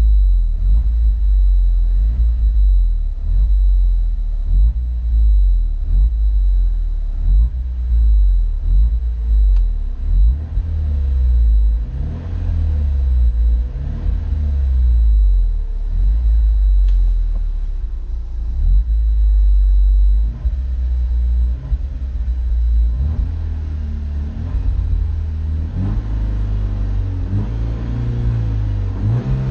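BMW Z4 E85 2.0i's four-cylinder engine running, its note rising and falling over and over under a heavy low rumble.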